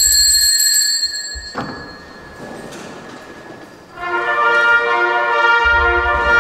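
Band music. A bell-like struck note rings out at the start and fades, a single knock comes about a second and a half in, and a held brass chord swells in about four seconds in.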